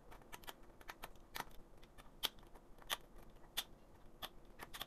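Small plastic snaps and clicks as a ballpoint pen tip pops the little support teeth out of a 3D-printed part one by one: a faint run of sharp, irregular clicks, the clearer ones coming about every two-thirds of a second.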